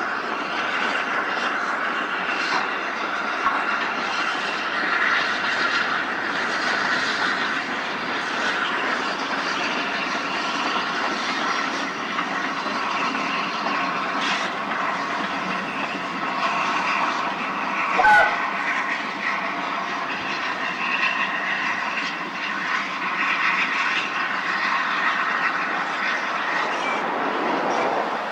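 Steam train running along the line, a steady rumble of wheels and rails. A single sharp knock comes about two-thirds of the way through.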